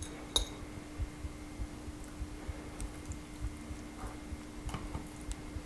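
Faint steady hum with a few light clicks and taps as hands pin raw chicken breasts closed with toothpicks in a glass baking dish.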